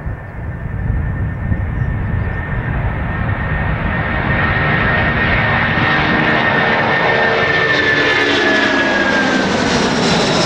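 Boeing 747 jet airliner at take-off thrust, its four Rolls-Royce RB211 engines running as it lifts off and climbs away. The roar grows louder over the first few seconds, and a high engine whine slides slowly down in pitch near the end as the jet passes.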